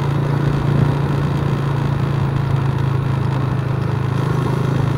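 A vehicle engine running steadily on the move: a constant low hum under an even haze of road noise.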